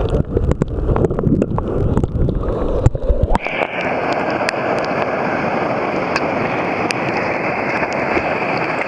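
Rushing river water with many small clicks and knocks. About three and a half seconds in the sound changes abruptly: the low rumble drops away, leaving a steady, even hiss.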